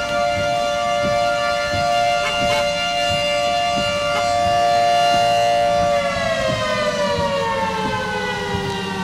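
Outdoor warning siren sounding a steady two-note wail, then winding down, its pitch falling steadily from about six seconds in.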